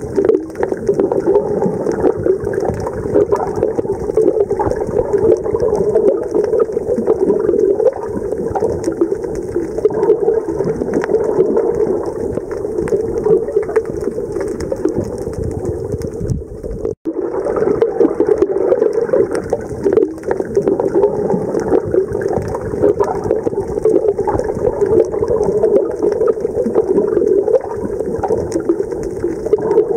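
Steady, muffled rush of water noise heard by a camera underwater, strongest in the low-middle range, with a brief dropout about seventeen seconds in.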